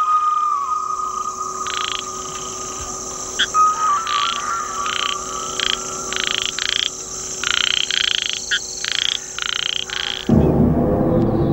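A chorus of frogs: short calls repeated at an uneven pace over a steady high buzz, with a held whistle-like tone at the start. Near the end a soundtrack of dark, low music comes in and takes over.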